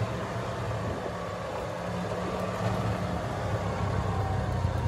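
Golf cart driving along with a steady low hum from its motor.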